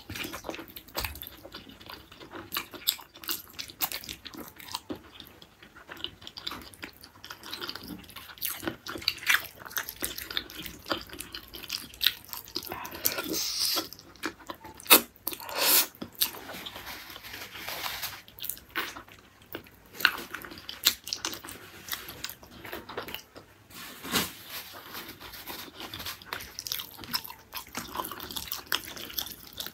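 Close-miked chewing and biting of beef tendon curry eaten by hand: wet, sticky mouth clicks and crunches at an irregular pace. A few louder, longer wet sounds come about halfway through.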